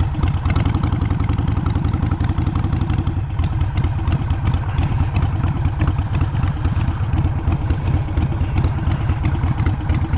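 Harley-Davidson Sportster's air-cooled V-twin, bored out to 1275 cc, running at low revs on the road during break-in, its exhaust beat pulsing fast and even with small rises in revs.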